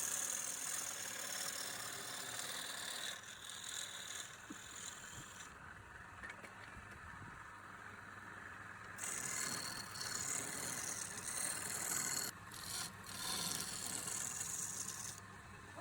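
Wood lathe running with a steady low hum while the spinning wooden workpiece is worked, giving a hissing, rasping scrape that comes and goes in passes. The scrape drops out for a few seconds in the middle and returns.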